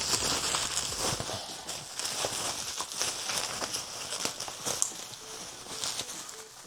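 Handling noise: irregular light clicks, knocks and rustling as the LCD navigation screen and the parts around it are picked up and moved about.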